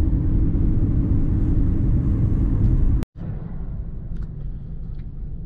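Car road and engine noise heard from inside the cabin while driving: a steady low rumble that cuts off abruptly about three seconds in and comes back quieter.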